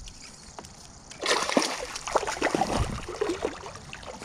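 Hooked bass splashing at the water's surface beside the boat as it is reeled in: a loud splash about a second in, followed by smaller splashes and sloshing.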